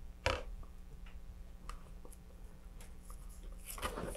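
Faint handling sounds of gloved hands working a plastic model rocket and its fin fairings: one sharp click about a quarter second in, then scattered light ticks and rustles, over a low steady hum.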